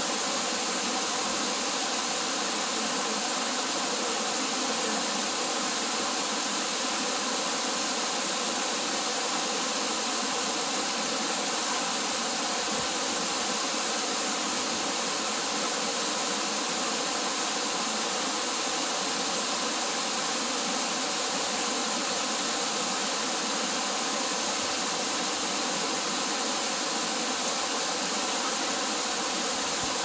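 Waterfall pouring down a rock face and splashing onto the rocks below: a steady, even rush of falling water.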